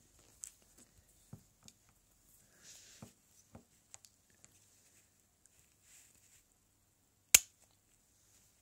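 Faint scattered taps and clicks of handling, then about seven seconds in a single sharp, loud click: a spring-loaded finger-prick lancing device firing its lancet.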